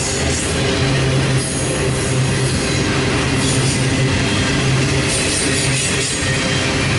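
Double-stack intermodal freight train's well cars rolling past, a loud steady rumble of steel wheels on rail with a high hiss that comes and goes over it.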